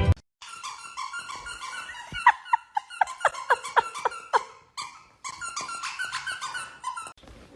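Dog whining in a run of short, high squeals, with a quick series of falling yelps, about three a second, in the middle.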